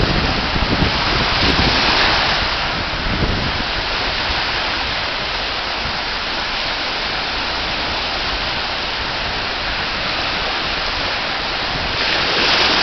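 Small Atlantic waves washing up on a sandy beach: a steady rushing hiss that swells in the first couple of seconds and again near the end, with wind rumbling on the microphone.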